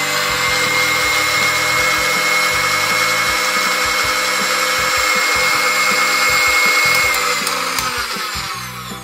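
Electric hand mixer running steadily with a high whine, its wire beaters whisking two eggs in a glass bowl. The motor winds down and stops near the end.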